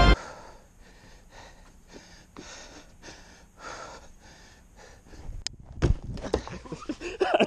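A person breathing quickly and heavily while clambering over a wooden playground structure, the breaths coming roughly two or three a second. A couple of sharp knocks on the wood come about five and a half seconds in, followed by louder voice sounds near the end.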